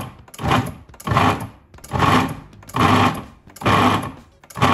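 Food processor pulsed in short bursts about once a second, its blade chopping mushrooms and herbs down to small pebble-sized pieces.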